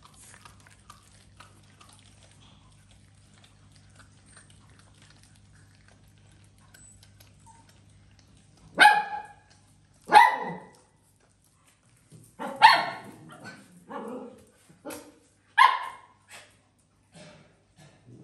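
Cats chewing faintly on a raw chunk of meat, then about nine seconds in a small dog starts barking: about ten sharp barks in irregular bursts, the loudest in the first few.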